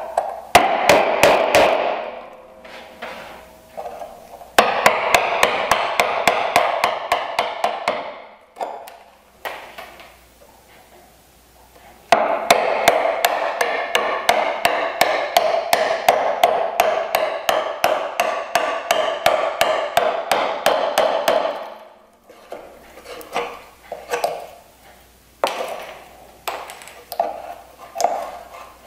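Brass-headed mallet tapping a bench chisel in quick runs of sharp, slightly ringing strikes, about four or five a second, chopping waste from a bridle joint's open mortise a thin slice at a time. There is a pause about a third of the way in, a long unbroken run in the middle, and slower, scattered taps near the end.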